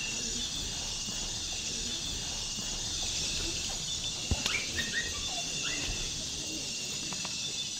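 Night chorus of insects, a steady shrill high-pitched drone, with a few short calls and a single sharp knock about halfway through.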